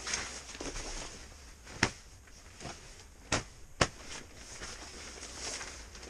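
Nylon survival-suit fabric rustling as the suit is pulled off, with three sharp knocks, about two seconds in and twice more near four seconds in.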